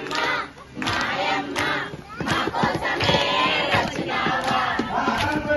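A group of devotees chanting loudly in unison over their own hand claps, with short breaks between phrases about half a second and two seconds in.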